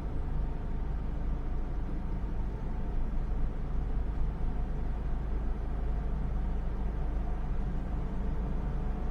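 Steady low engine rumble with a faint hum, heard from inside a car.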